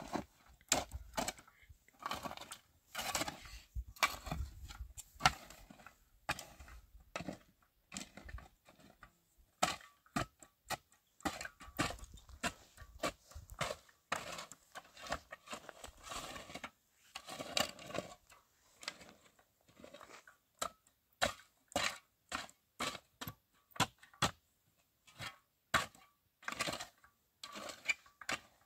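Irregular knocking and clattering: many short, sharp knocks, some in quick runs, with gaps between them.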